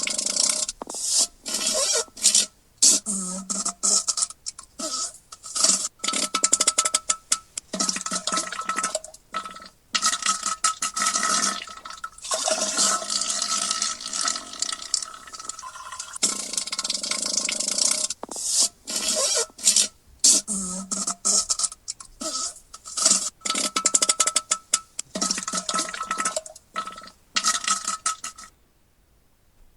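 Diarrhea sound effect: a long run of sputtering, splattering liquid noise in irregular on-off bursts, some drawn out and some short. It cuts off a little before the end.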